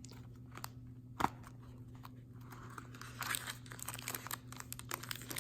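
Packaging being handled and opened: a few scattered clicks and one sharp tap about a second in, then crinkling and rustling from about three seconds in that grows denser, over a faint steady low hum.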